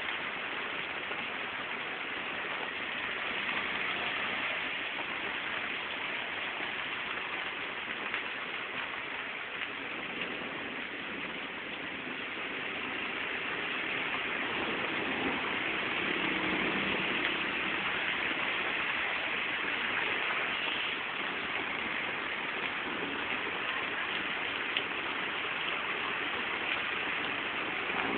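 Heavy downpour: a steady, dense hiss of rain on surfaces. A low engine hum rises under it around the middle and fades again.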